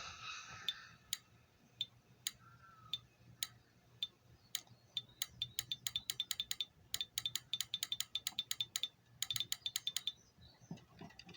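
Relay in a homemade 24-volt fire alarm control panel clicking as a zone input is energised: scattered single clicks at first, then quick runs of clicks from about five to ten seconds in. The clicking is the relay switching on zone activation.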